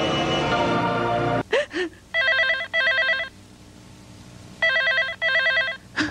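Dramatic background music ends about a second and a half in. A landline telephone then rings twice with a warbling electronic double ring, each ring two short bursts in quick succession.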